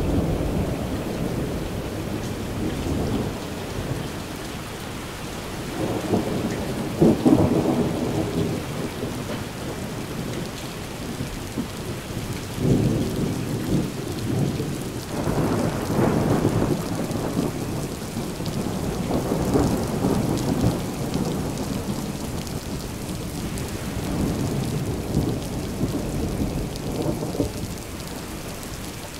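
Steady rainfall with thunder rumbling again and again over it, the loudest peal about seven seconds in.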